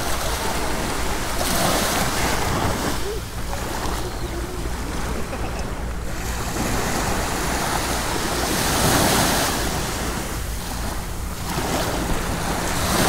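Sea waves breaking on a beach, the surf swelling loud a few times and easing between, over a steady low wind rumble on the microphone.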